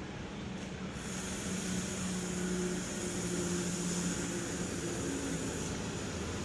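Diesel engine of a Mercedes-Benz OH-1626 coach running steadily as the bus pulls out and drives past, growing louder about a second in. A high steady hiss sits over the engine through most of the pass.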